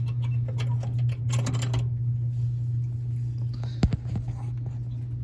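Small clicks and rattles of hands working the spring off a dryer's idler pulley, with a sharp single snap about four seconds in, over a steady low hum.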